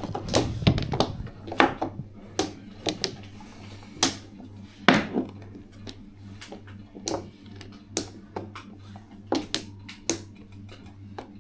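Mahjong tiles clacking: a dozen or more sharp, irregular clicks as tiles are set down and knocked together on the table, over a faint steady low hum.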